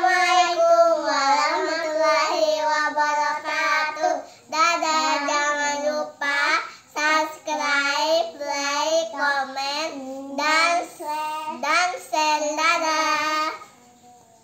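Young girls singing a short song together in high child voices, stopping shortly before the end.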